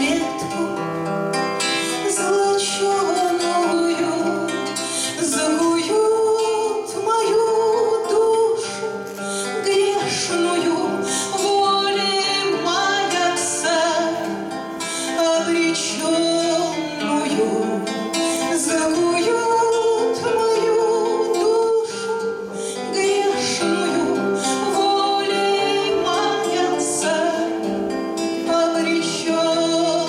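A woman singing a Russian bard song in a full voice, accompanying herself on a strummed acoustic guitar.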